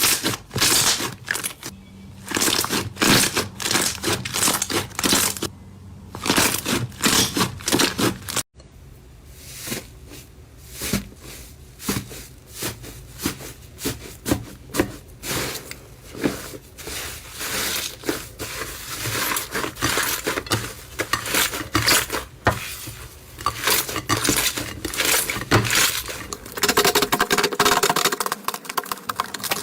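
Slime being squished and pressed, giving dense runs of crackling, popping clicks in bursts, with a short break about eight seconds in.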